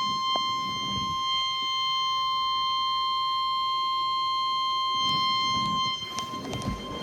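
NOAA Weather Radio 1050 Hz warning alarm tone: a single steady, shrill tone that signals an urgent severe-weather broadcast message is about to follow.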